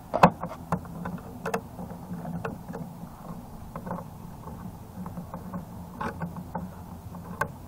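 Hand screwdriver working a screw out of the metal band holding a transformer in a plastic battery-backup case: scattered light clicks and scrapes of metal on metal, the sharpest about a quarter second in, over a steady low hum.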